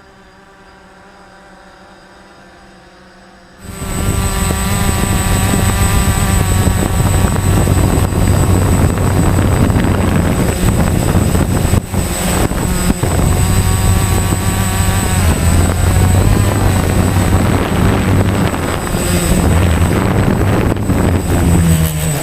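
Quadcopter drone motors and propellers whirring. The sound is faint at first, then becomes suddenly loud and close a few seconds in and stays steady, with a low hum and a thin high whine.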